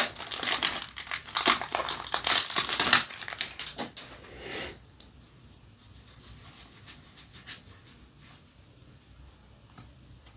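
Foil wrapper of a Yu-Gi-Oh! booster pack being torn open and crinkled for about four seconds. After that come only faint soft ticks of the cards being handled.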